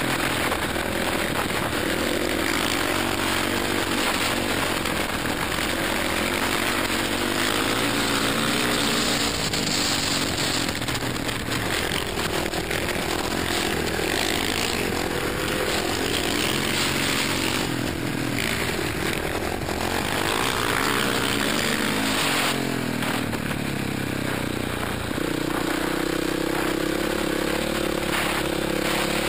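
Racing motorcycle engine run hard, its pitch rising and falling as the rider accelerates, shifts and backs off through the corners. Dense wind rush on the helmet-mounted microphone runs under it.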